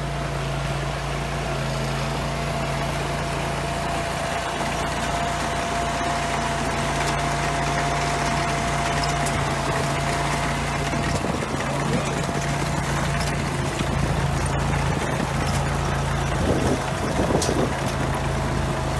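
Compact tracked trencher running steadily as its digging chain cuts a trench through soil, with a thin steady whine over the engine.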